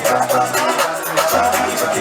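Loud party music with a steady beat and bass line, and a singing voice over it.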